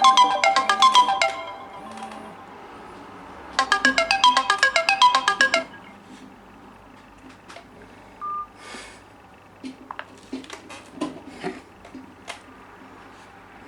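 A smartphone ringtone playing a quick tune of short, bright notes in two bursts, stopping about five and a half seconds in. Scattered light taps and clicks and one short beep follow.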